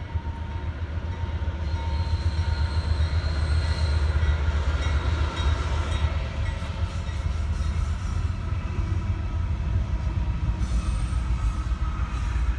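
Norfolk Southern freight train's diesel locomotives rumbling past a level crossing at close range, growing louder over the first few seconds and then holding steady. It is heard from inside a car.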